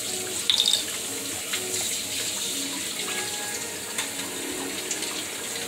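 Steady rushing hiss, with a light clink about half a second in.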